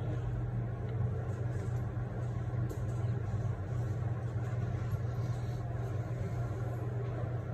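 Steady low hum with a constant background hiss and no distinct events.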